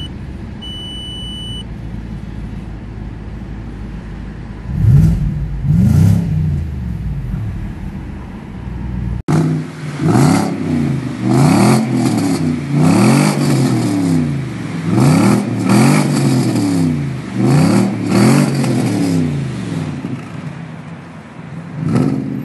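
Audi S8 D2's 4.2-litre V8 heard from inside the cabin, idling and revved twice, with a dashboard warning chime beeping at the start. Then, from outside at its dual exhaust, it is blipped again and again, about eight quick rise-and-fall revs, with one more near the end.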